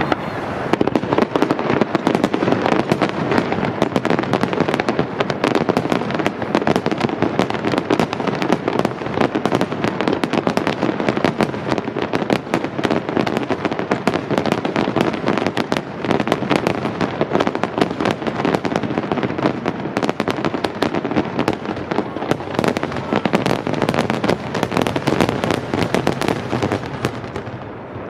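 Dense fireworks barrage: shells bursting in rapid succession, one bang overlapping the next in a continuous crackling rumble, tailing off near the end.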